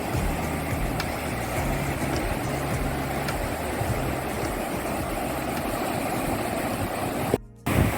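Steady rushing of ocean surf with wind buffeting the microphone, which drops out briefly near the end.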